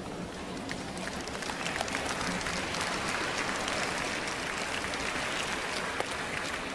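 Arena crowd applauding: dense clapping that swells about a second and a half in and eases off near the end.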